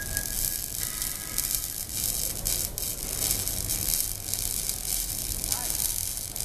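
Electric arc welding: a steady crackling hiss of the arc with frequent sharp crackles.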